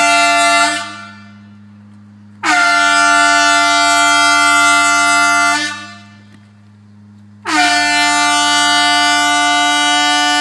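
Demolition warning horn sounding long, steady blasts: the end of one, then two more of about three seconds each. These are the warning signals before the charges are fired.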